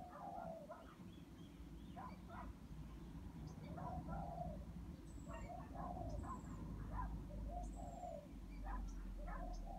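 Several wild birds chirping and calling in short, repeated notes, with a few thin high notes among them. Under the birdsong runs a steady low hum and rumble that grows stronger in the second half.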